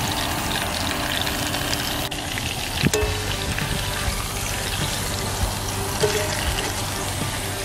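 Pork ribeye roast sizzling steadily as it sears in hot oil in a cast-iron skillet, with a sharp clack about three seconds in as metal tongs grip and turn it.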